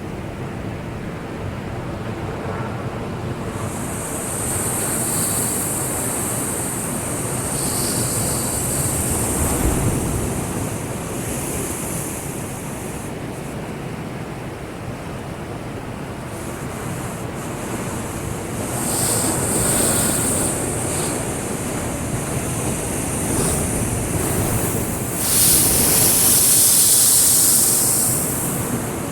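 Heavy typhoon swell surging and breaking, waves rolling in one after another in a steady wash of surf. About 25 seconds in, a sudden loud crash of breaking water hisses for a few seconds.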